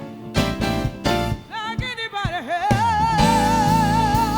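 Live soul band playing with sharp hits, then a singer's run sweeping up and down that settles into one long held note with vibrato over the band.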